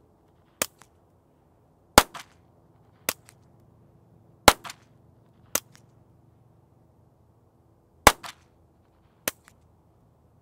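Seven suppressed shots from a Ruger Mark-series .22 LR pistol firing standard-velocity ammunition through an older .22 suppressor, at uneven intervals: short, sharp cracks, some noticeably louder than others, several followed by a fainter second crack just after. Pretty quiet for a can of its age.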